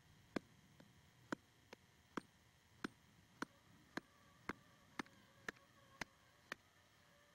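A series of faint, sharp clicks, uneven at first and then settling to about two a second.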